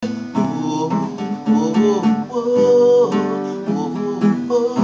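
Acoustic guitar music starting at once after a brief silence, with chords strummed and plucked.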